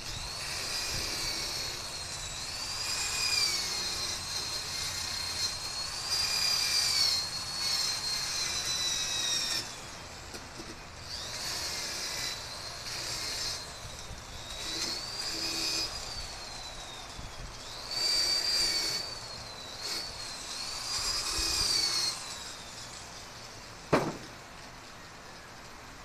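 Handheld electric angle grinder grinding on welded metal in several passes with brief let-ups. Its high motor whine drops in pitch each time the disc is pressed into the work and rises again when it is eased off. A single sharp knock comes near the end.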